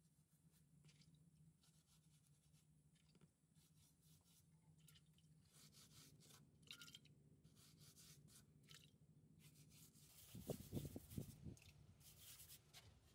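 Near silence with faint scraping and ticking as hands work wet clay and mud plaster. A few soft, low thumps come about ten seconds in.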